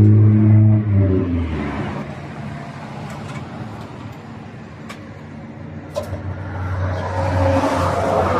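A motor-vehicle engine hums close by and drops away after about a second and a half. Street noise with a few light clicks follows. Near the end a sizzling hiss builds as melted butter is spooned onto sopes on the flat-top griddle.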